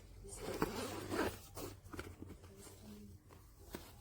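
Zipper on a fabric camera shoulder bag being pulled, two quick rasping strokes in the first second and a half, followed by light handling clicks.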